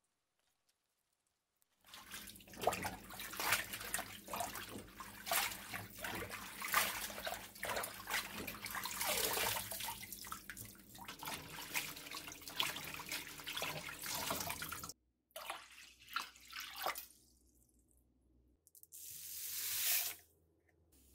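Tap water running onto young radish greens as they are rinsed by hand in a basin, with many splashes, starting about two seconds in. After a few more splashes, water pours from a tap onto coarse salt in a stainless steel bowl to make pickling brine, growing louder for about two seconds and then stopping sharply.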